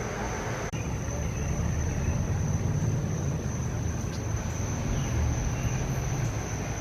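Outdoor street ambience: a steady low rumble of road traffic, with a steady high-pitched insect drone above it.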